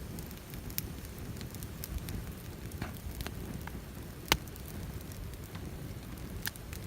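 Wood campfire crackling, with scattered sharp pops over a low steady rumble; one loud pop a little past four seconds in.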